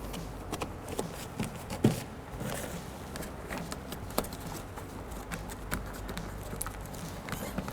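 Hands pressing a plastic vapor-barrier sheet down onto the butyl tape of a car door's inner panel: scattered light taps and clicks, one a little louder about two seconds in.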